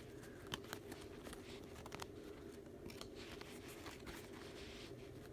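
Trading cards being handled and flipped through: faint scattered clicks and a light rustle of card stock over a steady low room hum.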